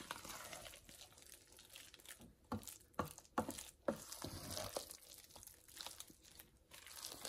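Wooden spoon stirring and folding thick, mayonnaise-coated potato salad in a stainless steel pot: faint, irregular wet squishing and scraping, with a few sharper clicks of the spoon partway through.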